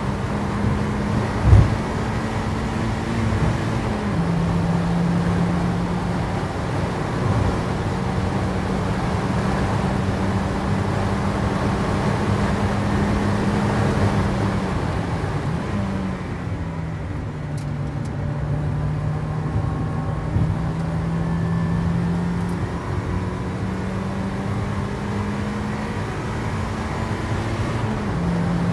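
Mazda MX-5 Mk1 race car's four-cylinder engine running hard under racing load, heard from inside the stripped cockpit over road and tyre noise. The engine note drops in pitch about 4 s in and again around 16 s, then climbs again. A single sharp thump comes about a second and a half in.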